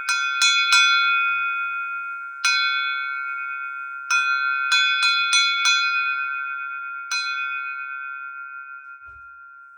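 A crystal glass tapped about ten times, in small clusters, each tap ringing out in one clear high tone with overtones, like a temple bell. The ring fades slowly away after the last tap.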